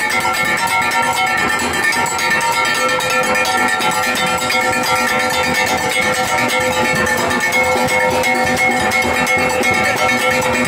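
A steelband playing: steel pans ring a continuous melody over a dense, steady beat of clanging metal percussion.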